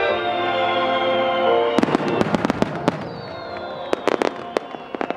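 Fireworks crackling with rapid sharp pops, in a dense cluster about two seconds in and another about four seconds in, over music that fades out around three seconds in.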